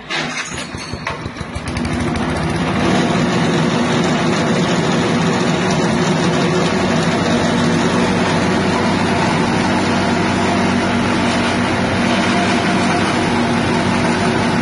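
Small 6.5 hp petrol engine on an elephant-grass chopper running and spinning the chopper, uneven for about the first two seconds, then running steadily.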